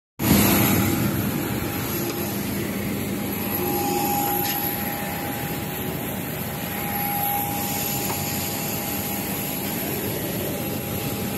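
Steady jet aircraft noise on an airport apron: a continuous rush with a high thin whine and a lower hum.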